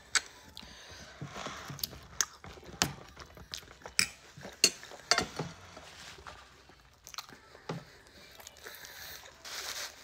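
Close-up chewing and mouth sounds of someone eating T-bone steak, with scattered sharp clicks of a knife and fork on the plate.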